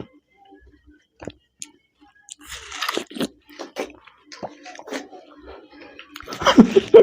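Watermelon being bitten and chewed in quick mouthfuls: wet crunching and munching in short, irregular bursts, with a louder burst near the end.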